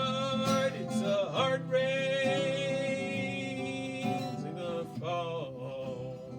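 Folk song with acoustic guitar and a male voice holding long notes on the final line, the sound slowly fading.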